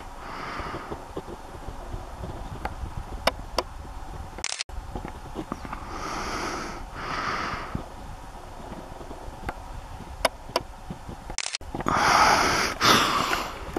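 Wind rumbling on the microphone, with a person breathing and sniffing close to the mic in soft puffs: two in a row about six seconds in and a louder pair near the end. There are a few faint handling clicks, and the sound drops out briefly twice.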